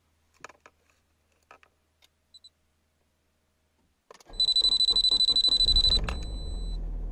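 A few faint clicks, then about four seconds in a starter cranks the Nissan SR20DET turbo four-cylinder over in quick pulses while a high-pitched electronic beep sounds. After about a second and a half the engine catches, the beep stops, and it settles into a steady idle.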